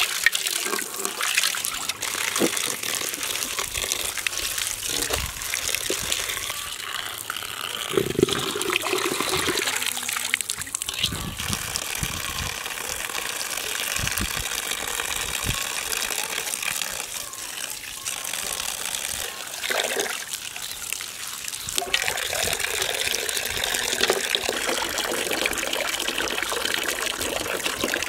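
Running water splashing onto stones and pouring into a metal basin of fresh greens, with hands swishing the greens through the water to wash them.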